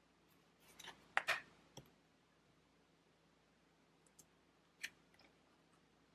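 Tarot cards being handled: soft clicks and taps of card stock, a quick cluster about a second in, then a few single clicks later.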